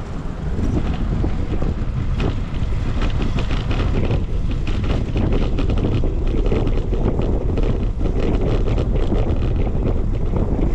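Wind buffeting the microphone of a camera riding on a moving bicycle: a steady low rumble with frequent small knocks and rattles.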